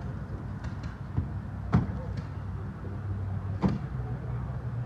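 Two sharp knocks about two seconds apart over a low steady hum and faint background voices.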